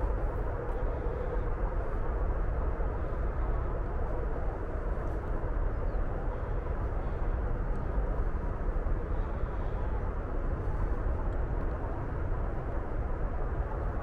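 Steady drone of highway traffic, an even rumble with no single vehicle standing out.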